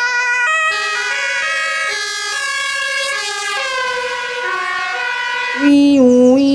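Electronic ambulance siren sound, as from a toy ambulance, alternating between two tones about twice a second. After about a second it changes to a run of tones stepping up and down like a short tune. A louder, lower sound cuts in near the end.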